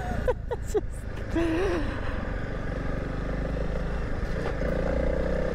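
Honda CRF300 Rally's single-cylinder engine running steadily as the motorcycle rides along a gravel road.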